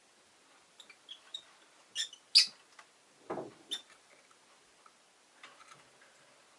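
Rosy-faced lovebird giving short, sharp chirps and squeaks in scattered ones and twos, the loudest about two and a half seconds in. A brief dull rustle sounds just after three seconds.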